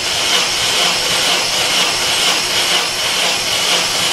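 Vauxhall Corsa VXR four-cylinder engine cranking over on its starter motor with a steady, slightly pulsing whirr, turned over for a compression test of cylinder 1.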